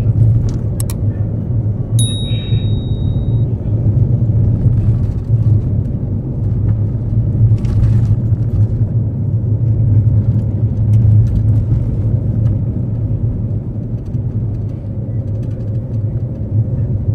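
Small car driving on the road, a steady low drone of its engine and tyres from the 2018 Suzuki Karimun Wagon R. A brief high-pitched tone sounds about two seconds in.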